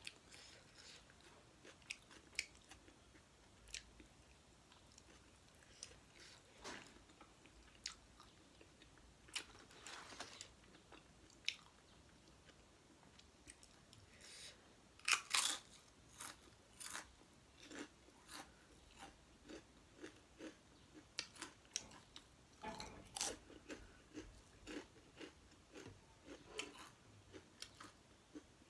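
Close-up mouth sounds of someone eating by hand: chewing, lip smacks and small clicks. About halfway through come several loud, sharp crunches of a potato crisp being bitten and chewed.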